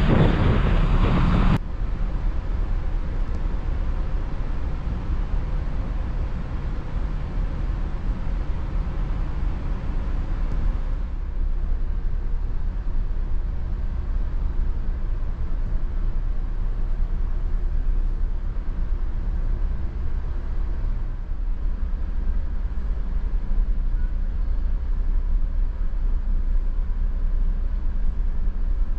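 Wind buffeting the microphone on the ferry's open deck for the first second and a half, then a steady low drone of the ship's engines and machinery heard inside the vessel. One of the hum tones drops out about two-thirds of the way through.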